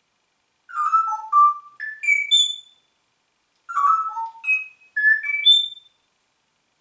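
Congo African grey parrot whistling the same short tune twice, each phrase a run of clear notes that step upward from low to high pitch, with about a second's pause between the two.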